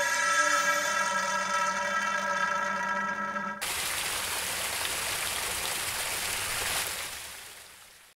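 A held electronic-sounding tone with many overtones, cut off suddenly about three and a half seconds in and replaced by a steady rushing hiss that fades away near the end.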